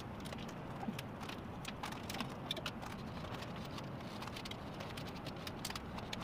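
Scattered light clicks and taps over a steady low background hiss, from handling a metal suspended-ceiling grid.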